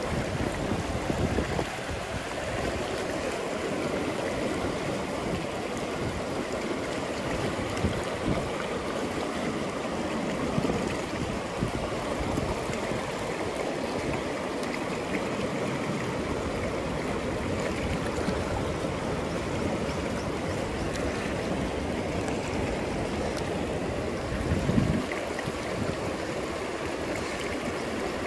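Steady rush of river water flowing, with a few brief low bumps, the most noticeable near the end.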